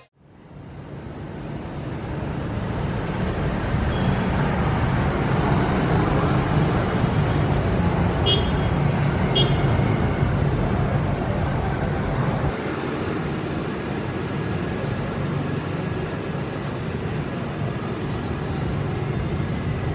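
Steady city street traffic noise, mostly motorbikes, fading in at the start. A few short high chirps or beeps stand out about halfway through.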